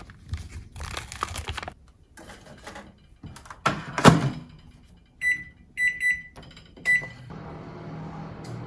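Plastic lid film crinkling as a microwaveable rice pack is peeled open, then a couple of sharp clunks from the microwave oven door about four seconds in. Four short keypad beeps follow, and the microwave oven starts heating with a steady hum.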